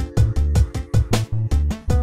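Upbeat background music with a steady drum beat over bass and held chords.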